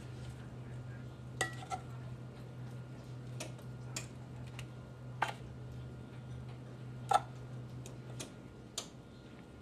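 Metal kitchen tongs clicking and clinking against food and board as sandwich filling is laid on, about eight scattered sharp clicks with the loudest about seven seconds in. Under them runs a low steady hum that stops a little after eight seconds.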